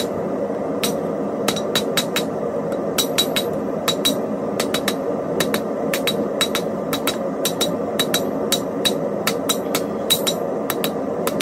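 Hand hammer forging metal on an anvil: irregular blows, about two to three a second, each with a bright ring, over a steady background rush.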